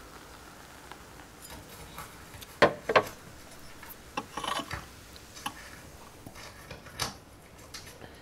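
Scattered clicks, knocks and rubbing, like small objects being handled, with the two loudest knocks close together about two and a half and three seconds in.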